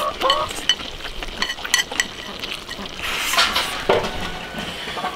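Chopsticks clicking and tapping against rice bowls and a metal serving pot, with the mouth sounds of people eating, in a run of short sharp clicks.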